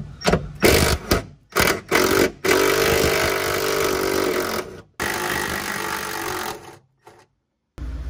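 A handheld power tool running in several short bursts, then in two longer steady runs of about two seconds each that stop abruptly.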